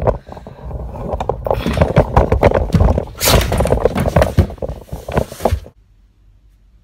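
Phone microphone handling noise: rubbing, rustling and knocks as the phone is carried and moved close against the face, cutting off suddenly near the end.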